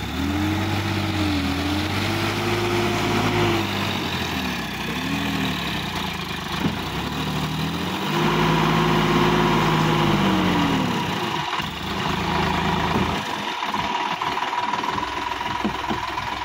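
Sonalika DI-50 RX tractor's diesel engine revving up and down as the tractor pulls through deep mud, its pitch rising and falling several times. Near the end it drops to a lower, rougher, uneven running sound.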